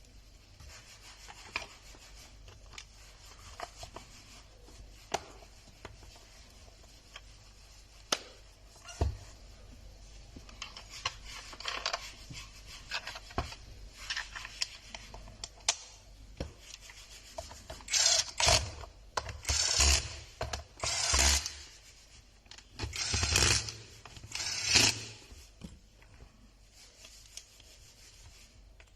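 A heat gun's plastic housing being handled and fitted together: rubbing and small clicks, then a run of short, louder scraping bursts in the second half.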